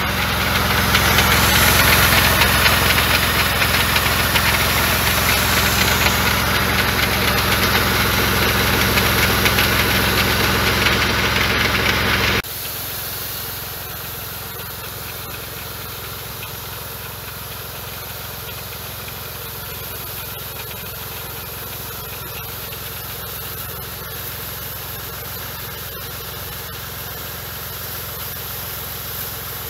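Başak 2043 tractor engine running steadily with a broad hiss over it; about twelve seconds in the sound drops abruptly to a quieter, steady engine hum.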